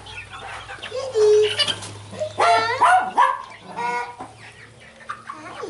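A flock of chickens clucking and calling in short squawks, the loudest calls about a second in and again around two and a half to three seconds in.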